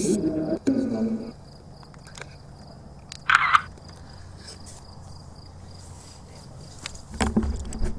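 Crickets chirping in a steady high pulsing trill, with short murmured voices near the start and end and one brief sharp sound a little over three seconds in.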